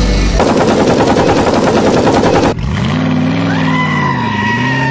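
A loud rapid rattle for about two seconds, then a car engine sound effect revving, its pitch rising, dipping near the end and rising again.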